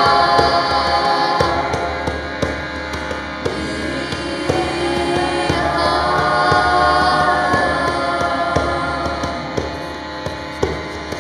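A group of voices chanting together in long held notes over a harmonium drone, the singing easing off in loudness toward the end.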